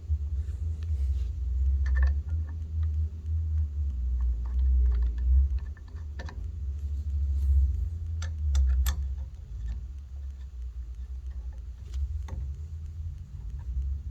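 Scattered light metallic clicks and taps as pulley hardware is handled and fitted with hand tools, a cluster of them about 8 to 9 seconds in, over a steady low rumble.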